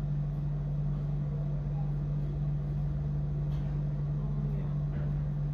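A steady low hum with no change in level.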